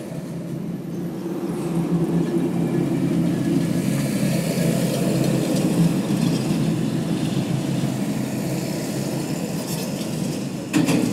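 Steady low mechanical rumble with a constant hum in it, growing louder over the first couple of seconds and then holding level, with a sharp click near the end.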